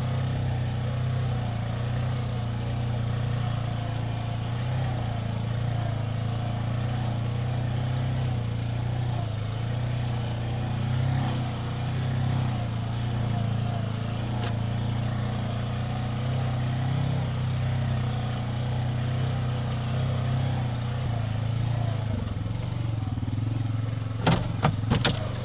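ATV engine running steadily while driving a rough dirt trail. Near the end comes a quick cluster of several sharp knocks.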